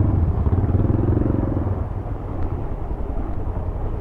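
Motorcycle engine running, a steady low rumble.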